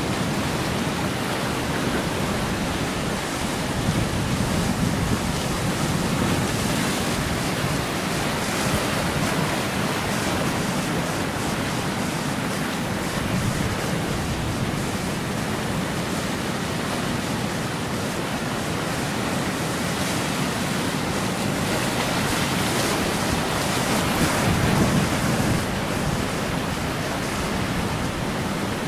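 Rough surf breaking and washing among rocks, a steady rushing noise that swells briefly twice.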